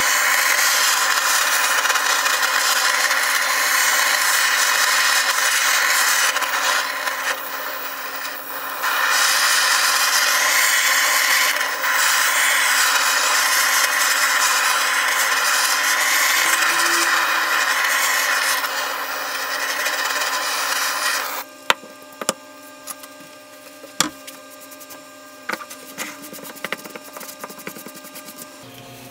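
Handheld gas blowtorch burning with a steady hiss as its flame scorches a plywood surface, briefly quieter around eight seconds in. It cuts off after about twenty seconds, leaving faint scattered ticks and rubbing as a cloth wipes the charred wood.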